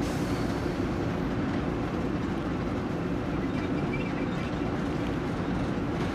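Diesel freight locomotive running along the line, heard from inside its cab: a steady, mostly low noise of the engine and the wheels on the rails.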